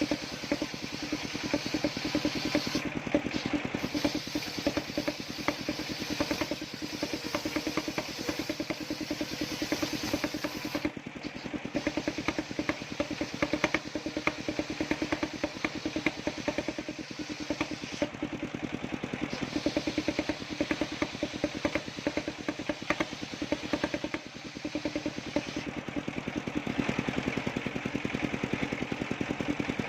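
Engine of a homemade circular-saw sawmill running steadily with a rapid, even pulse.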